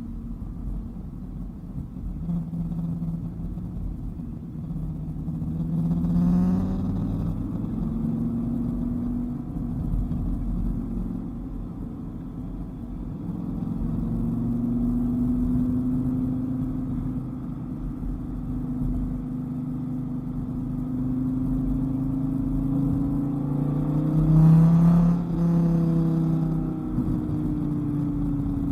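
Dodge Viper GTS's V10 engine pulling through the gears on winding mountain roads, its pitch rising and falling with the throttle. It revs up hard about six seconds in and again near the end, where the pitch jumps up and then slowly sinks as the car slows.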